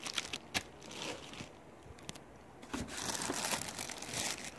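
Plastic bags crinkling as yarn skeins and a bottle wrapped in plastic are handled in a cardboard box: scattered crackles at first, denser rustling in the second half.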